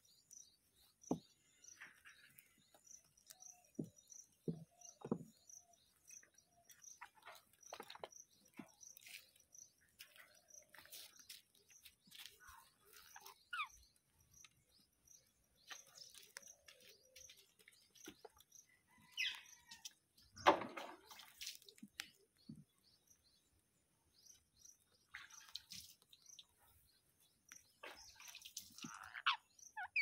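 Rose-ringed parakeets feeding: scattered sharp clicks and taps of beaks pecking corn kernels on a plastic table, with faint short chirps. There is one louder sound about two-thirds of the way through.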